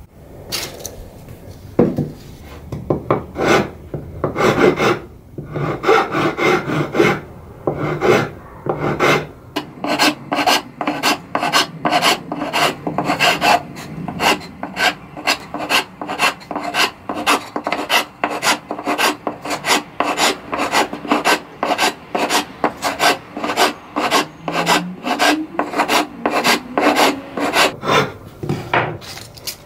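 Hand file rasping back and forth across the end of a wooden table leg. The strokes are slow and uneven at first, then settle into a quick regular rhythm of about two a second.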